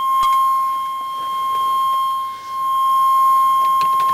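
A steady high-pitched electronic warning tone, held without a break, with a few faint clicks.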